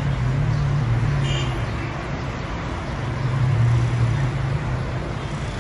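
Road traffic in a congested street: vehicle engines running with a steady low hum over a wash of traffic noise.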